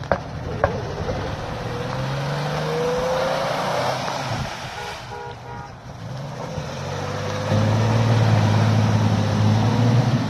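Third-generation Toyota 4Runner's engine driving off-road: a whine climbs in pitch over the first few seconds, then the engine revs hard and holds high revs for the last few seconds.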